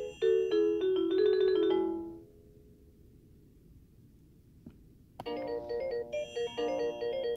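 Electronic chime melody from a baby's musical nightlight toy. One tune steps downward and ends about two seconds in. After a quiet pause and a faint click, a new, quicker tune starts about five seconds in.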